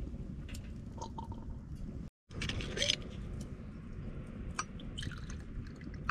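Sake poured from a small glass bottle into a small glass, the pour trickling and gurgling, loudest between about two and three seconds in. Scattered crackles of a wood fire.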